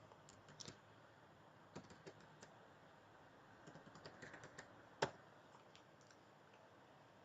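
Faint computer keyboard typing in short runs of key clicks, with one sharper, louder click about five seconds in.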